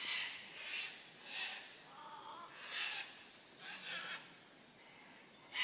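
Koala's claws scraping and gripping the bark of a eucalyptus trunk as it climbs down, a series of short scratchy rasps.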